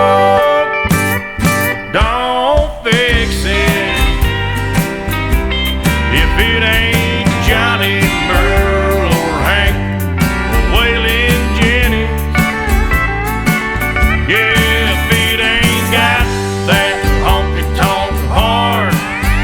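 Country song playing as background music, an instrumental passage with a steady beat and no singing.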